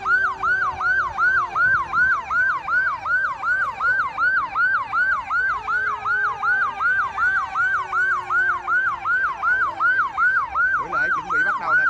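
Emergency vehicle siren in a fast yelp: a rapid rising-and-falling wail repeating about three times a second. A lower tone slowly sinks in pitch beneath it.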